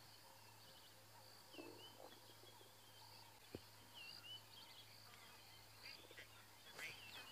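Near silence: faint outdoor bush ambience with a steady low hum and a faint high drone, broken by a few faint bird chirps and one soft click about halfway through.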